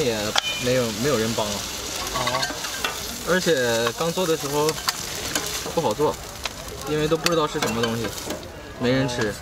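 Food sizzling on a hot flat-top griddle, with a metal spatula scraping and tapping on the plate now and then, under a man talking in Mandarin.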